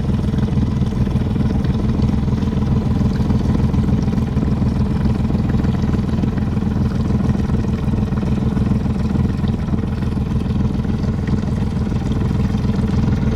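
A boat engine running steadily at a constant low drone, with no change in pitch or level.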